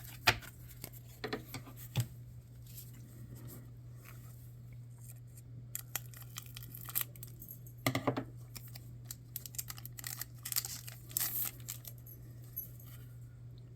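Trading cards being handled and flipped, with papery rustling, crinkling and soft clicks scattered throughout, over a steady low hum.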